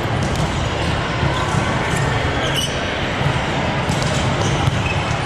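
Echoing din of a multi-court volleyball hall: volleyballs knocking and bouncing on the hard courts, scattered irregularly over a steady background of many people.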